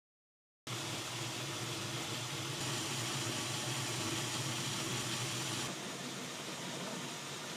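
Homemade Gingery metal lathe running under power, with a steady hum of its motor and belt drive while a spindle is being turned down. It starts just under a second in and gets slightly quieter and duller about six seconds in.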